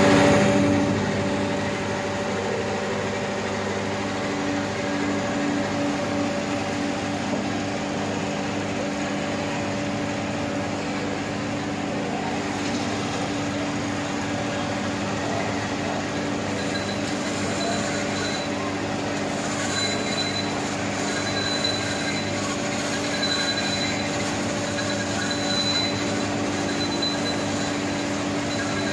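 Silage baler and bale wrapper running steadily: a continuous mechanical rumble with a steady hum while a round bale of chopped fodder is turned and wrapped in plastic film. A faint high squeal comes and goes over the second half.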